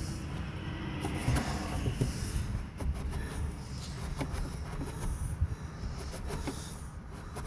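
Light knocks and rustling as a black grab-handle strap is worked by hand up and around a Jeep's sport bar, over a steady low rumble.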